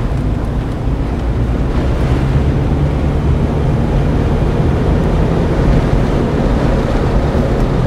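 A vehicle driving along a rough sandy track, heard from inside the cab: steady low rumble of engine and tyres.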